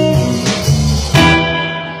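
Live electric blues band playing, led by electric guitar over bass. About a second in the band hits a chord together and lets it ring out, fading away.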